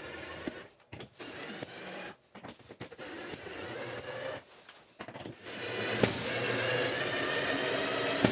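Cordless drill driving mounting screws through a plastic controller back plate into the wall: the motor whines in several short bursts, then runs longer and louder from about five seconds in.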